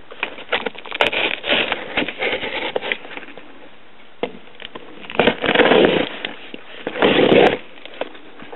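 Cardboard shipping box being opened by hand: scattered clicks, crackling and scraping, with two louder spells of tearing and rustling about five and seven seconds in.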